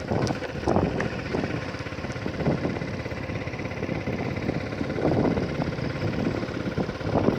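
A vehicle running along a dirt road, with wind buffeting the microphone in uneven gusts.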